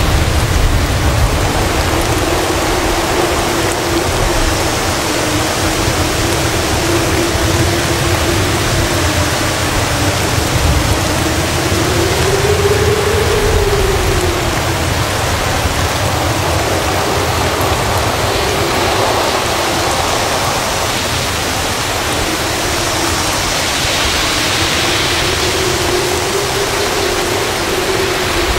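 Heavy rain pouring down in a strong windstorm, a steady loud rush with a low rumble of wind underneath. A low wind howl wavers through it, rising in pitch about halfway through and again near the end.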